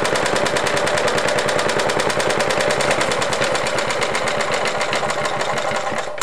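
Single-cylinder Briggs & Stratton 5S flathead engine on a 1953 Craftsman power reel mower running steadily, with a rapid, even popping of its firing strokes. The engine needs a head gasket: the owner says exhaust leaks out all around the head and it isn't running quite right.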